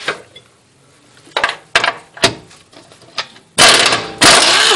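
Socket ratchet working a bolt on the car's underside: a few single clicks and knocks, then two loud bursts of rapid ratchet clicking near the end.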